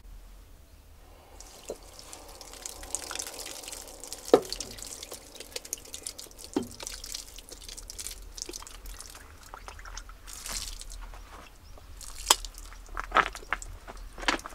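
Water sounds: a faint steady hiss sets in about a second and a half in, with scattered light knocks and clicks, the sharpest ones near the end.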